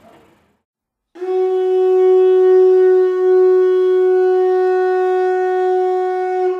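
A single long horn-like note from a wind instrument, starting about a second in and held at one steady pitch for about five seconds, played back from a recording through the room's speakers.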